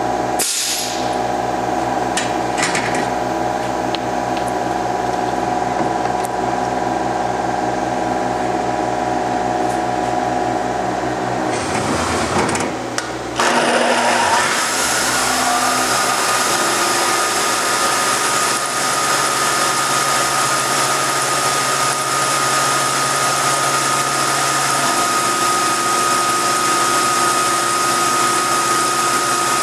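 CNC milling machine running with a steady hum for the first dozen seconds; about thirteen seconds in, a louder hiss of flood coolant sets in and a steady high whine joins a couple of seconds later as the end mill cuts the billet snowmobile clutch helix.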